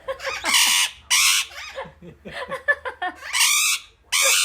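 Pet talking parrot screeching: four harsh squawks, with lower chattering calls between them.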